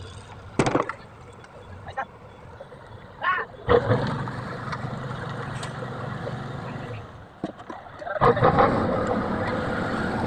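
Heavy machinery engine running on a concrete road pour, with a few sharp knocks in the first few seconds. The running noise starts suddenly about four seconds in, fades briefly, and comes back louder about eight seconds in.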